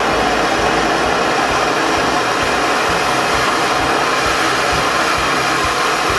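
Soldering torch flame hissing steadily while copper pipe is heated for soldering to a shut-off valve.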